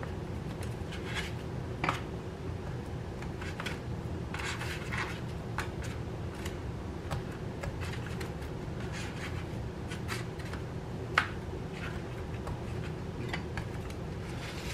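A metal fork pricking raw sausage casings on a foam meat tray: scattered light clicks and scratches, the sharpest about eleven seconds in, over a steady low hum.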